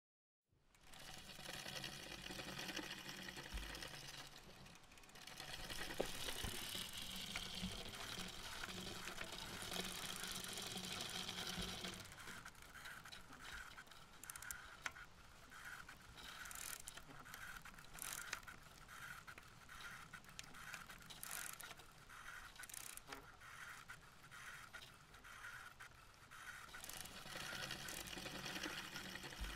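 Bicycle riding along a street: tyre and wind noise, with the rear freewheel's pawls ticking rapidly as the rider coasts through the middle part.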